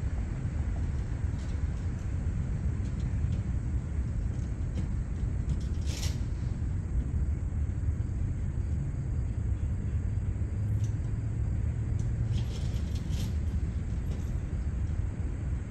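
Outdoor ambience: a steady low rumble, with one short sharp high sound about six seconds in and a few faint high ticks later on.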